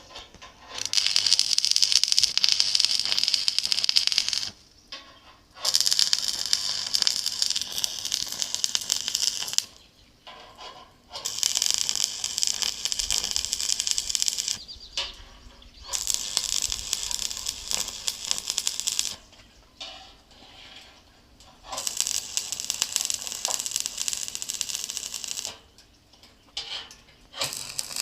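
Stick welding on thin square steel tube: the arc crackles and hisses in steady runs of three to four seconds, stopping briefly and striking again about six times.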